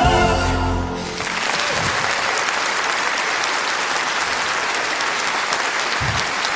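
A final sung note held over the orchestra ends about a second in, and the audience breaks into steady applause.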